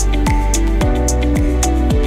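Background music with a steady beat: low thuds falling in pitch about twice a second, over held notes and high ticking percussion.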